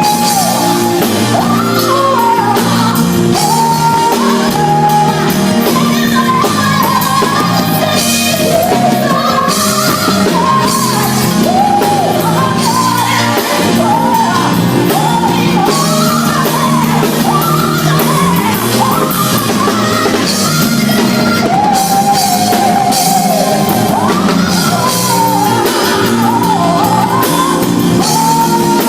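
Loud live singing over a band's accompaniment, the voice carrying a continuous melody throughout.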